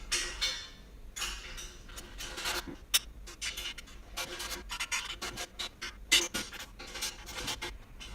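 Small metal bolts being tightened to fix wheels onto a steel motorcycle dolly: irregular metal clicks and scraping, with one sharper click about three seconds in.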